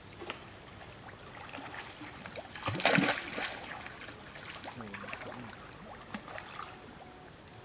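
Water splashing and sloshing as several monkeys swim and wrestle in a pool, with a loud splash about three seconds in.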